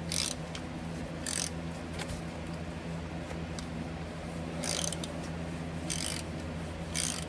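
Hand ratchet wrench worked in short strokes, about five times at irregular intervals, loosening the bolts of a PTO cover plate on a semi truck's transmission. A steady low hum runs underneath.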